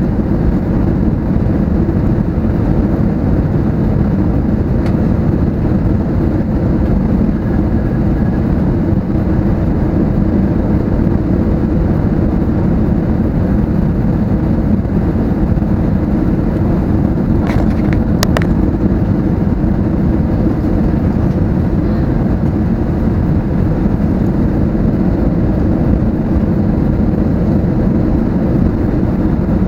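Steady low rumble inside the cabin of an Airbus A320neo, from the engines and the air rushing past the airframe. Two brief clicks come close together a little past halfway.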